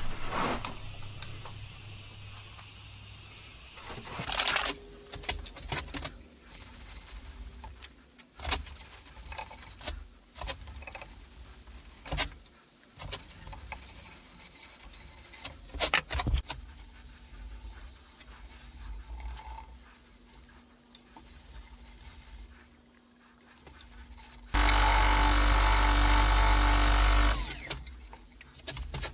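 Irregular handling clicks and scrapes on the work at the lathe, then a loud steady hiss of an aerosol spray for about three seconds near the end.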